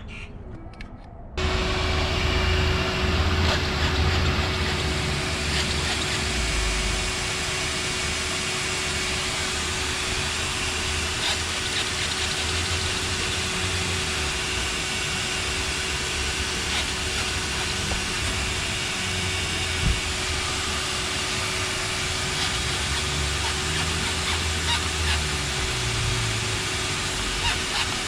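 Shop vac running as a blower, switched on about a second in: a steady rushing noise with a constant motor whine, blowing air into the exhaust system to pressurise it for leak checking.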